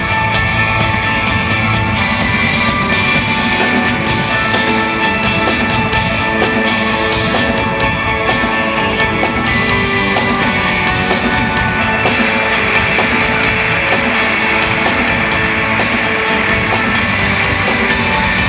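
Rock music played by a live band: electric guitars over a drum kit, loud and steady.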